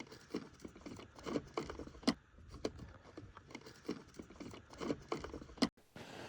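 Faint, irregular clicks, taps and scuffs of handling or movement over a low steady rumble. The sound cuts off abruptly near the end.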